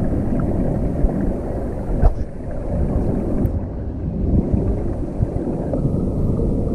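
Muffled low rumble of water and tank machinery heard through a camera's waterproof housing underwater, with a few soft knocks, the clearest about two seconds in.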